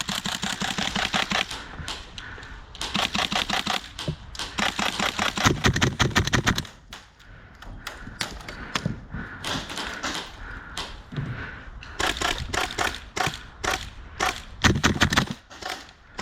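Airsoft guns firing in rapid bursts of sharp clicking shots, several bursts of one to a few seconds each with short pauses between.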